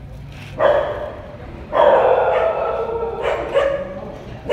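Kittens meowing loudly: a short call under a second in, a long drawn-out call from about two seconds in, then a few shorter calls.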